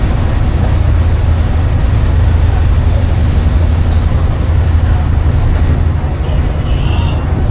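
Ferry boat's engine running with a steady low rumble, with faint voices of passengers underneath.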